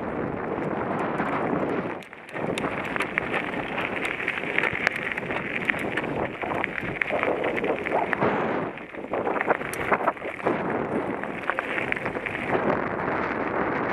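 Wind rushing over a helmet camera's microphone and mountain-bike tyres crunching over loose gravel at speed, with scattered sharp clicks and rattles. The rush drops off briefly about two seconds in and again near nine seconds.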